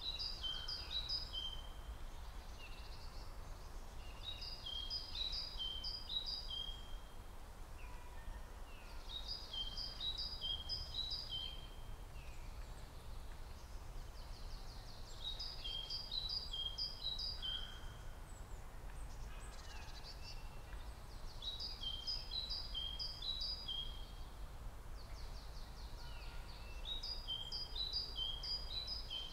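A songbird singing the same short phrase of quick, high notes six times, about every five to six seconds, over a steady low background rumble.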